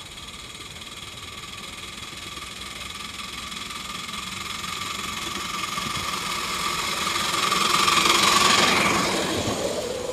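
A ride-on model train running along the track, coming closer and growing louder to a peak about eight and a half seconds in, then moving away. Its rolling noise carries a steady ringing tone.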